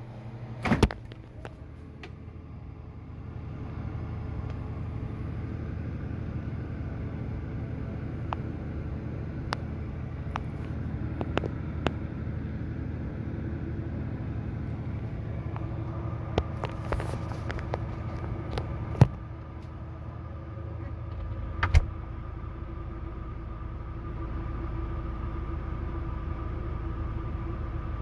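Steady low rumble of a motor vehicle running, with scattered sharp clicks and a few louder knocks, two of them in the second half.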